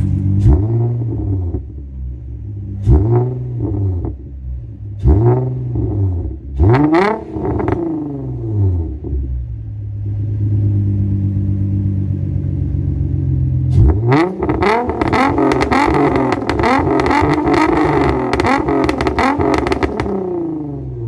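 Infiniti G35's 3.5-litre V6 through a straight-through 3-inch exhaust with test pipes, revved in four quick blips that rise and fall, settling to idle, then held at high revs for about six seconds with a rapid crackle before dropping back to idle near the end.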